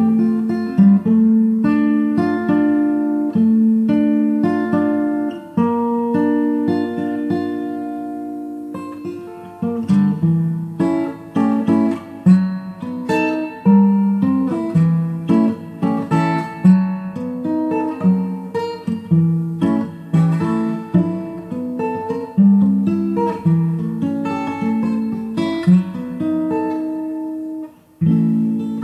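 Background music: guitar playing a melody of plucked notes that ring and die away.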